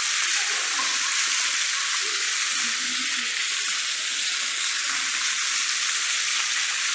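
Small fountain jets splashing into a canal, a steady hiss of falling water.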